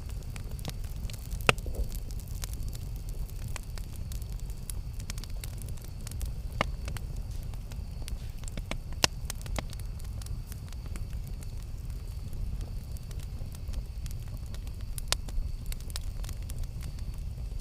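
Campfire burning: a steady low rush of flame with scattered crackles and a few sharp, louder pops.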